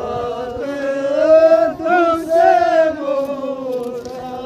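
Men's voices chanting together in long, drawn-out notes.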